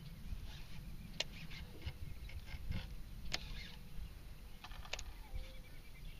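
Open-air ambience at the water's edge: a steady low wind rumble on the microphone, broken by a few sharp isolated clicks spaced a second or more apart.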